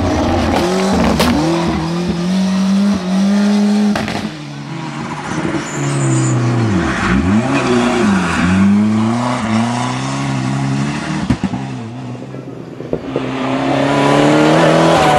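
Ford Sierra Cosworth Group A rally car's turbocharged 2.0 four-cylinder engine driven hard, its note climbing under throttle and dropping sharply on lifts and gear changes, over and over, with an abrupt change about four seconds in and a couple of sharp cracks.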